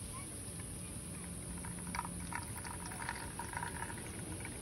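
Coffee pouring from a moka pot into a half-full enamel mug: a thin stream trickling and splashing into the coffee.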